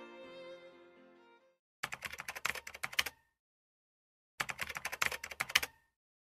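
Violin music fading out over the first second and a half, then two bursts of rapid keyboard typing clicks, each about a second and a half long, with a pause between them. The typing is a sound effect for on-screen text being typed.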